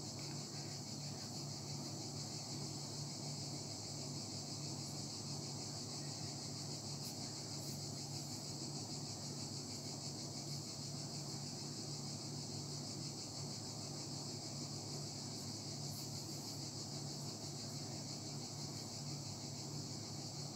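Steady background noise: an even high-pitched hiss with a low hum beneath it, unchanging throughout, with no distinct handling sounds standing out.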